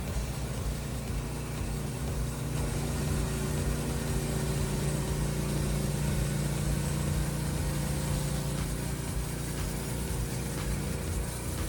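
Portable band sawmill's engine running steadily, a little louder through the middle as the mill head passes over.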